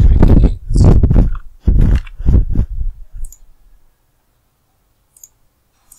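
A loud voice very close to the microphone for about the first three seconds, then quiet broken by a few single computer mouse clicks.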